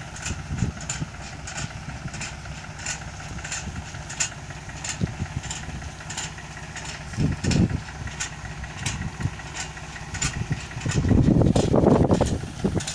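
Engine of a mulch-laying machine running steadily, with a regular ticking about three times a second. Near the end there is a louder surge of noise lasting a second or two.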